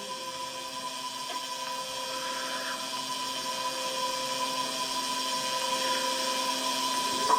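A steady machine hum with a fixed high-pitched whine, growing slowly louder.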